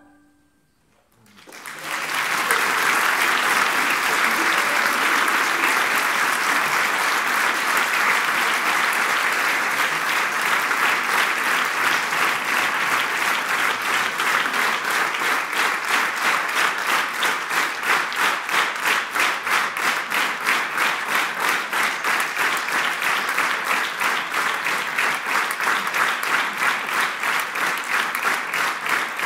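Audience applauding. It starts after a brief hush about a second and a half in, and about halfway through settles into steady rhythmic clapping in unison.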